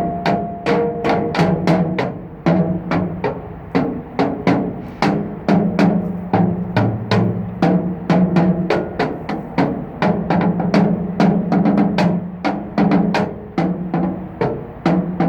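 Two sticks drumming on the metal structure of a bridge: quick, steady strikes about four a second, each leaving a ringing metallic tone, the pitch changing as different parts are hit.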